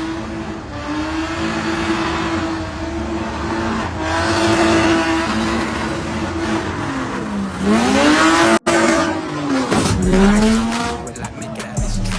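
Sports car engine held at high revs while drifting, with tyre squeal, then revved up and down several times in quick swings about halfway through.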